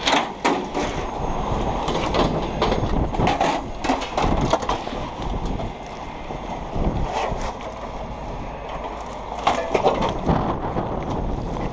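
Irregular metal clanks and rattles, some sharp and loud, over the steady low rumble of a heavy tow truck's engine running.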